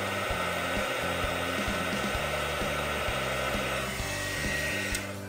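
Small handheld heat gun blowing steadily as it shrinks heat-shrink tubing over soldered wire joints, fading out near the end.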